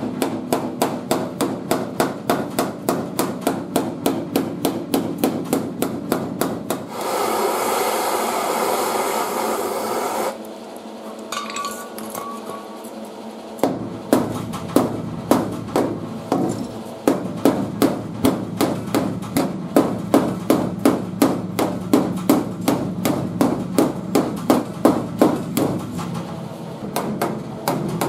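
Steel body hammer striking crumpled sheet metal on a pickup's rear bed corner in quick blows, about three a second, knocking out a crease while the panel is held under pull. About seven seconds in, the blows stop, a steady rushing noise runs for about three seconds, and there is a lull; the hammering resumes about halfway through.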